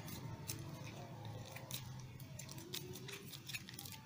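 Hands handling the small rubber and plastic parts of a BCD dump valve: scattered faint clicks and small crackles as the pieces are picked up and fitted together, over a low steady hum.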